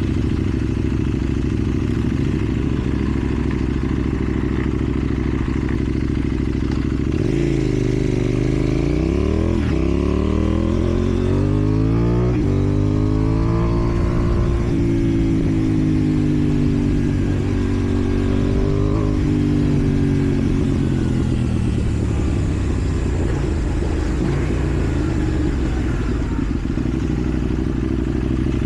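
KTM Duke 790's parallel-twin engine through a slip-on exhaust: it idles steadily, then about seven seconds in it revs up through several gear changes, holds a steady speed, and slows with falling revs around twenty seconds in.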